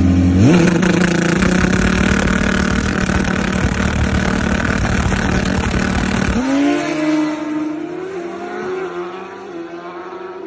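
Turbocharged Suzuki 1000 drag motorcycle engine revved up sharply about half a second in and held at high revs for about six seconds while the bike stays on the wet start area, as in a burnout. About six seconds in the engine note drops abruptly, then climbs again in steps while fading as the bike goes off down the track.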